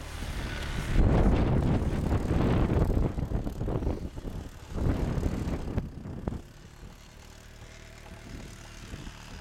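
Wind buffeting the microphone in gusts, a low noisy rumble that swells about a second in and again near the middle, then drops to a quieter rumble.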